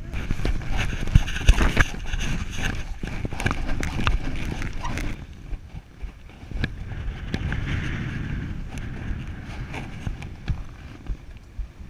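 Sailboat under way in a fresh breeze: wind buffeting the microphone and water rushing and splashing along the hull, with many sharp knocks and slaps over the first five seconds, then a steadier rush.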